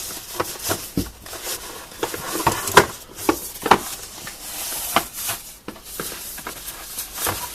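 Packaging being handled by hand during an unboxing: irregular rustling and scraping with a string of small knocks and clicks.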